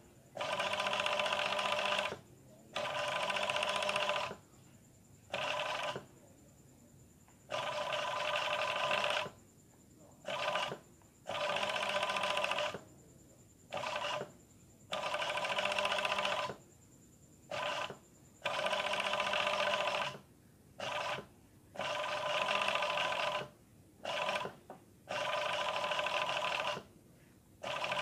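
Industrial overlock sewing machine stitching in short stop-start runs, each lasting from a fraction of a second to about two seconds, with brief pauses between. The motor and needle make a steady whine whenever the pedal is pressed. The operator is stitching a picot edge around a curve a little at a time.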